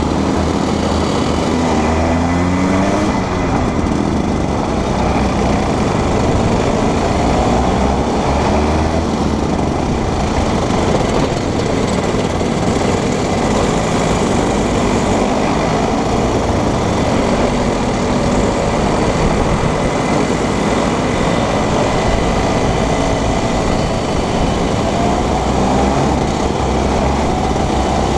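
Junior Rotax 125 cc two-stroke kart engines running at racing speed in a close pack, the onboard kart's engine closest. The engine pitch rises and falls repeatedly as the karts slow for corners and accelerate out.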